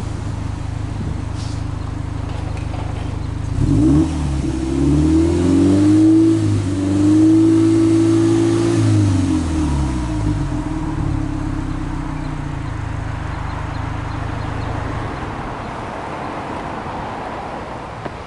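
Subaru GRB Impreza WRX STI's turbocharged boxer engine, heard at the twin tailpipes, idling and then free-revved in neutral: about four seconds in a sharp blip, then a few short revs and a held rev of about two seconds, falling back to a steady idle around ten seconds in.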